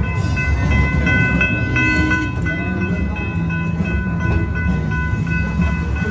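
Amusement-park ride train's whistle sounding one long, steady multi-tone blast lasting about five seconds, over the low rumble of the train running.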